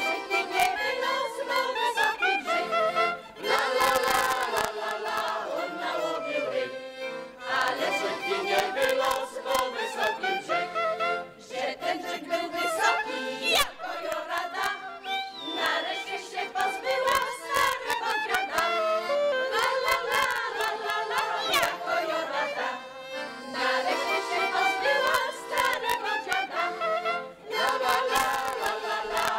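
Women's folk choir singing a Polish folk song together, several voices carrying a lively melody.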